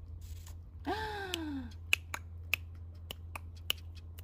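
Pomeranian puppy gives one short whine that rises briefly and then falls in pitch, followed by a run of sharp, irregularly spaced clicks, over a steady low hum.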